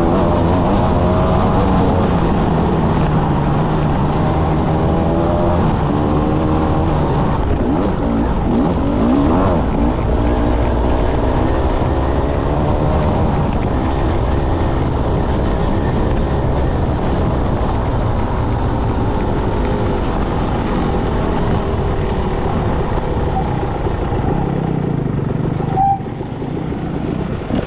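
Enduro motorcycle engine running hard under a rider, its revs rising and falling as it is ridden. Near the end it drops to a lower, quieter note.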